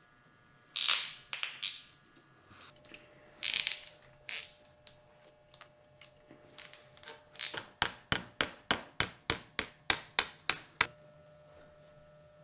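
Metal shoemaker's pincers working tacks in a leather boot upper on the last: a few scattered sharp clicks and snaps, then a quick run of clicks, about four a second, that stops about eleven seconds in.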